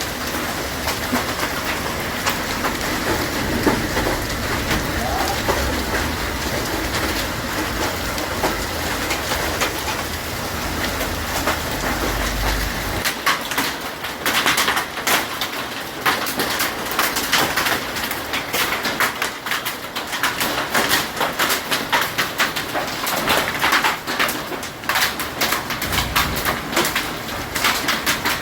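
Hail pelting down: a dense, continuous clatter of hailstones striking hard surfaces. A low rumble underneath stops suddenly about halfway through, after which the individual strikes stand out more sharply.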